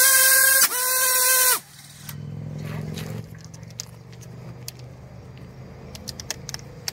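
Brushless FPV drone motor and propeller on a Halo ESC running AM32, whining loudly at high throttle in two bursts, then stopping abruptly about a second and a half in: a stick jammed into the spinning propeller to stall it and force a current spike. A lower hum follows for about a second, then faint clicks.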